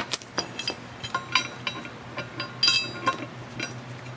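Steel tow bar bracket hardware (a bolt, nuts and a square plate washer) clinking as it is taken off the bracket and set down on concrete: a series of light metallic clinks, some with a brief ring.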